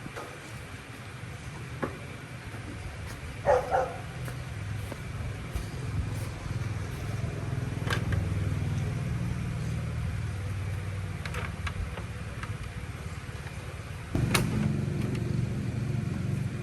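A steady low motor rumble with scattered clicks and small knocks. A sharp knock comes about fourteen seconds in, after which the rumble is louder.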